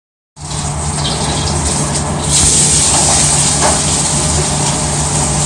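Loud, steady sizzling hiss of a hot wok, with a low rumble underneath, starting abruptly just after the beginning.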